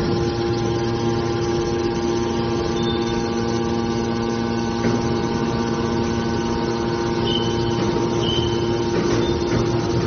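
Hydraulic power unit of a metal baler running with a steady hum, its motor and pump driving the cylinders that move the press lid. A few short high squeals come through near the end.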